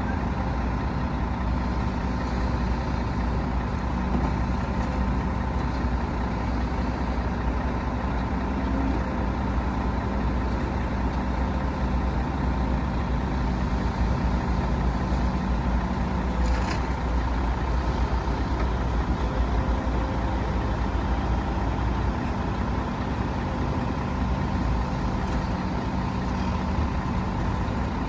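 Heavy diesel earthmoving machinery, an excavator and dump trucks, running steadily with a deep engine hum, with one short knock partway through.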